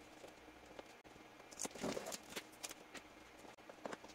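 Scissors snipping plastic packing straps around a cardboard box, with scattered light clicks and brief rustles as the straps and carton are handled.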